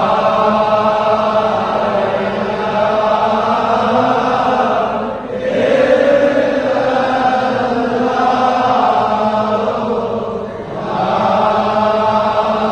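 Sufi zikr: voices chanting together in long, drawn-out phrases, breaking off briefly twice, about five seconds apart.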